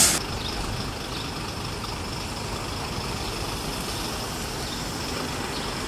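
Fire engine's diesel engine idling, a steady low rumble.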